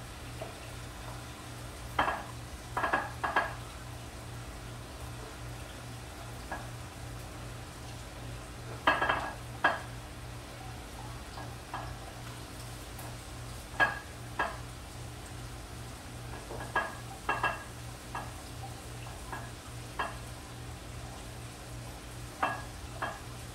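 Potatoes frying in a skillet with a steady sizzle, while a utensil stirs them, clinking and scraping against the pan about a dozen times at irregular intervals.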